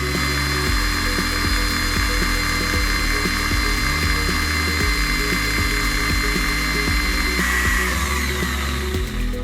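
Homemade belt sander's electric motor running with a steady whine, changing about three-quarters of the way through, under background music.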